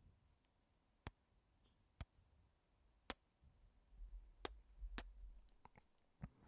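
Quiet close-miked kisses: short, sharp smacks about once a second, with a low rumble on the microphone for a second or so past the middle.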